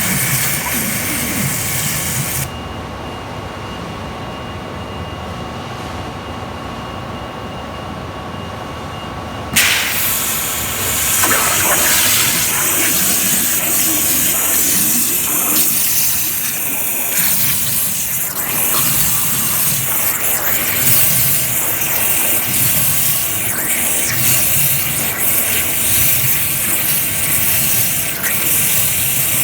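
CNC waterjet cutter's high-pressure water jet cutting through plastic sheet with a loud, steady hiss. The hiss drops out for about seven seconds, leaving a duller machine sound, then comes back suddenly.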